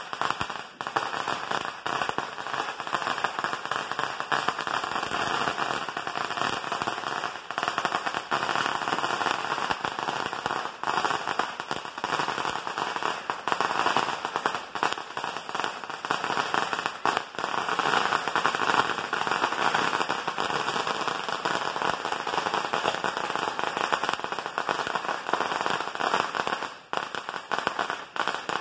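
A long strip of firecrackers going off in a continuous, rapid rattle of bangs, with a brief lull near the end.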